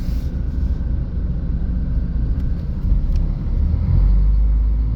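Steady low rumble of a moving road vehicle, engine and tyres, heard from inside as it drives along, growing louder about four seconds in.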